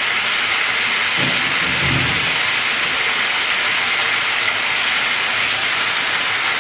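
Vegetables and spice paste sizzling steadily in oil in a wok on a gas flame, as the last of the water cooks off and the masala fries down.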